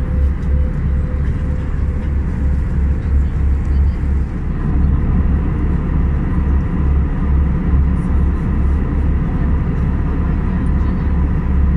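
Steady cabin noise of an Airbus A319 in flight, a deep rumble of engines and airflow with a faint steady tone, as the descent begins. About four to five seconds in, it turns slightly louder and a higher steady tone comes in.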